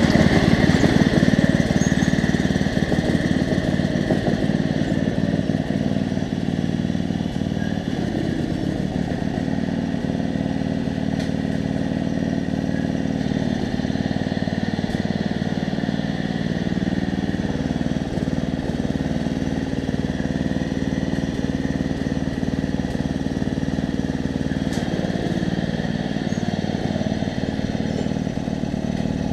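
Riding lawn mower's small engine running steadily, loudest in the first couple of seconds and then holding an even note.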